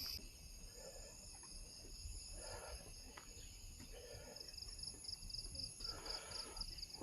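Insects in the forest keeping up a steady high-pitched drone, joined about halfway through by a fast, even pulsing chirp of several beats a second.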